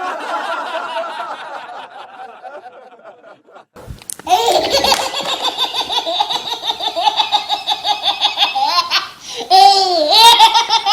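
People laughing in several different ways: a laugh that fades out, then after a short gap a higher, rapid laugh, and near the end loud squealing laughs that rise and fall in pitch.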